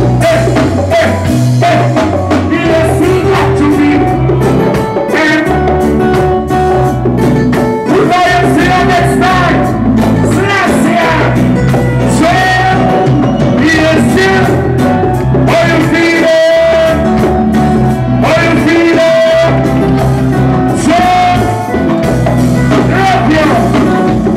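Live reggae band playing with a heavy, steady bass line while a vocalist sings over it on a microphone.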